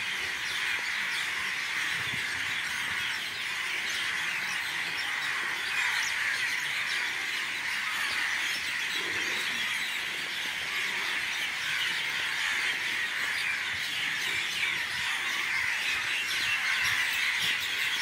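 A large flock of birds in the trees chirping all at once: a dense, steady chorus of overlapping calls.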